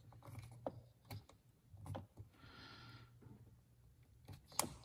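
Faint clicks and light plastic handling noises as a plastic quick-connect fitting on an engine-bay hose is squeezed and worked by hand to release it, with a brief rustle in the middle and a sharper click near the end.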